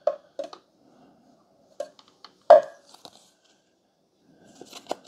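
Handling of an espresso machine's clear plastic milk-froth reservoir: a few light plastic clicks and taps, with one sharper knock about two and a half seconds in, likely as it is set down on the countertop. A soft handling noise follows near the end.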